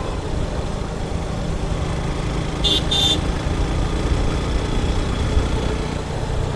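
Motorcycle riding along a city road: steady low engine rumble and road and wind noise. About two and a half seconds in come two short high-pitched toots in quick succession, like a small vehicle horn.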